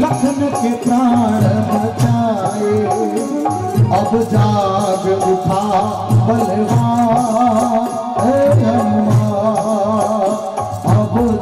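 Live Rajasthani devotional bhajan music: a melody with singing over a steady hand-drum rhythm.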